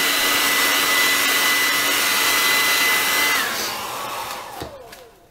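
Hair dryer blowing with a steady high whine, switched off about three and a half seconds in: the motor winds down with a falling pitch and the airflow dies away near the end.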